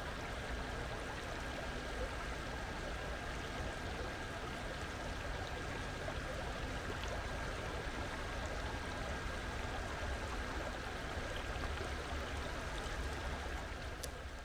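Stream water running steadily, an even, unbroken rush of flowing water.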